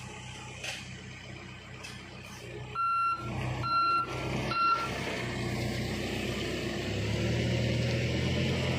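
Backhoe loader's reversing alarm beeping three times, about three seconds in, over its diesel engine running; the engine gets louder about seven seconds in.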